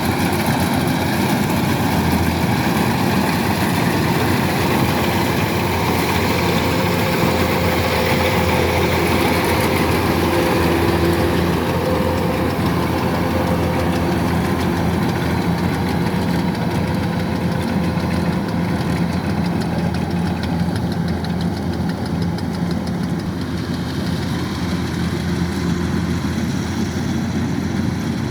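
Kubota DC-105X combine harvester running steadily, its engine hum mixed with the clatter of the machinery, easing slightly toward the end.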